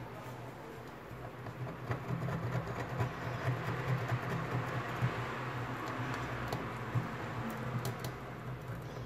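Light, irregular clicks and taps of small hand tools working on a smartphone's body during a back-cover replacement, over a steady low hum.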